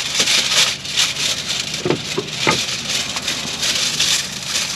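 Aluminium foil crinkling and rustling in irregular bursts as a sheet is torn off the roll and handled.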